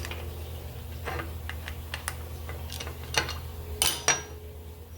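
Scattered light metal clicks and knocks as the aluminium bevel jig's angle plate is handled and set to a new angle, one pair near the end with a short metallic ring. A steady low hum runs underneath.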